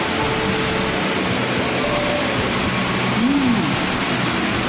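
Steady heavy rain, a loud even hiss, with a short rising-and-falling hum about three seconds in.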